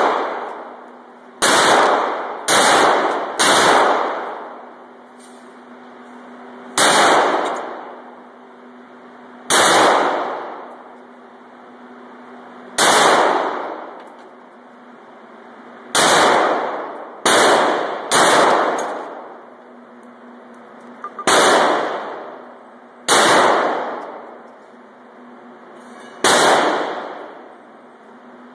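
Handgun shots fired one at a time, about a dozen at uneven gaps of one to three seconds, each loud crack ringing off for about a second in the enclosed indoor range.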